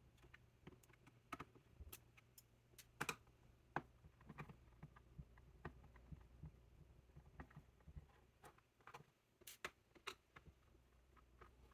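Faint, irregular small clicks and ticks of hand work on a laptop's plastic back cover, as screws are undone and the cover is worked loose.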